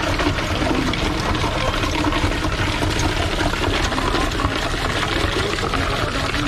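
Steady splashing of liquid being poured, as drinks are filled at a juice stall.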